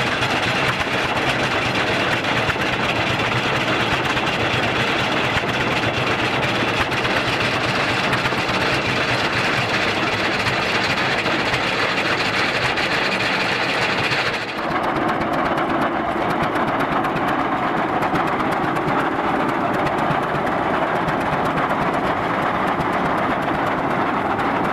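Case 20-40 tractor's two-cylinder opposed engine running steadily with a busy mechanical clatter. About halfway through the sound changes abruptly and turns duller.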